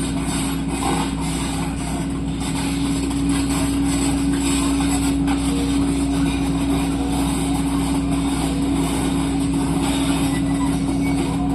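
Heavy diesel machinery running steadily at a quarry, with a constant low hum.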